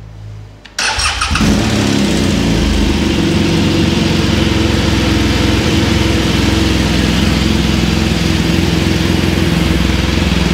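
BMW R1200GS Adventure's boxer twin starting on a freshly fitted battery: it catches after a short crank about a second in, then idles steadily.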